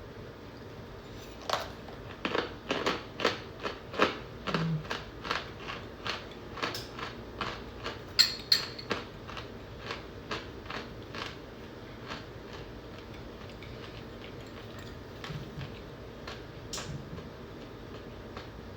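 Baked cornstarch chips crunching, a quick run of sharp crisp crunches about two to three a second. The run thins out after about eleven seconds, with a few softer crunches near the end.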